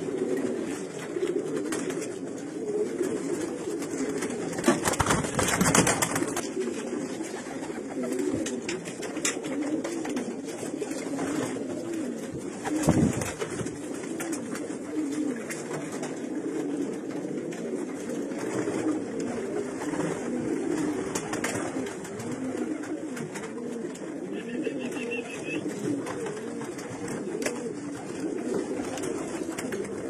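Domestic racing pigeons cooing continuously in a small wooden loft, many low burbling coos overlapping. A louder burst of rustling comes about five seconds in, and a short low thump near the middle.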